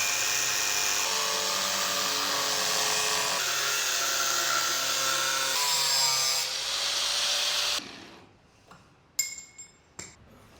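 Angle grinder cutting through a steel C-channel, running loud for about eight seconds with its pitch shifting as the disc loads up, then switched off and winding down. A few sharp knocks follow near the end.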